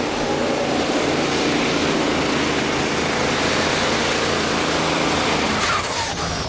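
Mack super semi pulling truck's diesel engine running at full power as it drags the pulling sled. About five and a half seconds in the sound drops away sharply and a high whine falls in pitch as the driver lets off, the truck having hooked right out of bounds.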